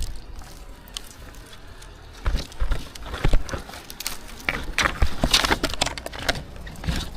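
Irregular rustling, crackling and knocks, getting busier about two seconds in, over a steady low rumble.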